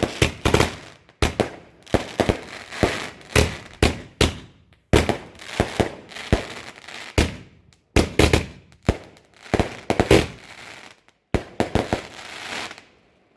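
Fireworks going off: a rapid, irregular run of sharp loud bangs, several a second at times, each trailing a crackling hiss, which stops near the end.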